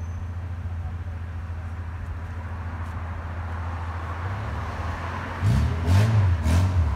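Car running with a steady low rumble. About five and a half seconds in it grows louder, with a low sound that rises and falls in pitch.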